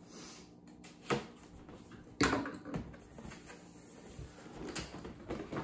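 Cardboard box and its packaging being handled: a few short knocks, the loudest about two seconds in.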